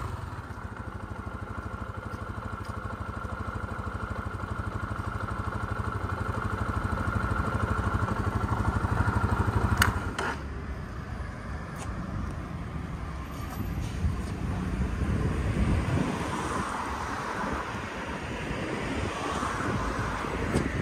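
Gilera Full Power 150's single-cylinder, 149 cc air-cooled four-stroke engine running with the bike standing. It holds a steady beat that grows slowly louder for about ten seconds, then drops back sharply with a click, and gives a few light revs in the second half.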